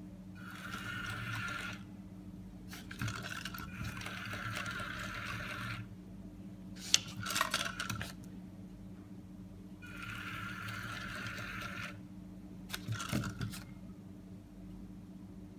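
A small two-wheeled robot's yellow plastic gearmotors whirring in bursts of one to three seconds, about five times, as the robot turns itself to hunt for and point to magnetic north. A couple of sharp knocks fall between the bursts.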